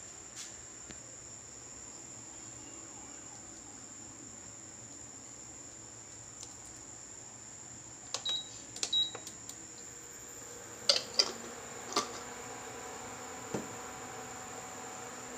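An induction cooktop's control panel beeps twice as it is switched on and set, followed by a few sharp clicks. A steady low electrical hum then sets in as the hob starts heating the pan of oil.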